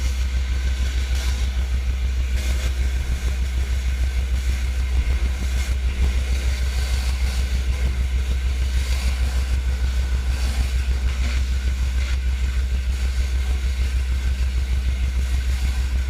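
Honda engine of a 4000 PSI direct-drive gas pressure washer running steadily at constant speed, a low pulsing rumble with a steady hiss over it.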